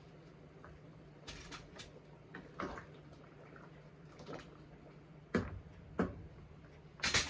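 Scattered knocks and clicks of kitchen work, cookware and utensils being handled, about eight in all, the loudest near the end, over a steady low hum.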